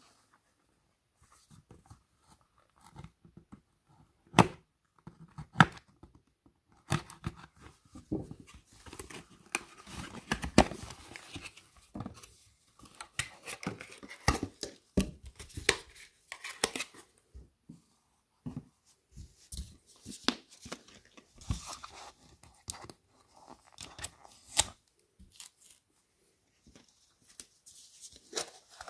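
A cardboard toy box and its packaging being handled and opened: irregular rustling and tearing with many sharp clicks and knocks.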